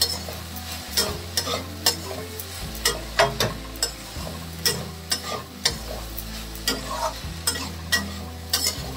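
Metal spatula stirring and scraping chopped okra around a metal kadhai, with short scrapes and clacks about twice a second over a steady sizzle of dry frying.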